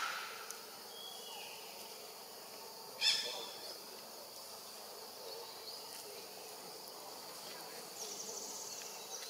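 Forest ambience of insects humming steadily at a high pitch. One short, sharp call sounds about three seconds in, and a rapid high trill comes in near the end.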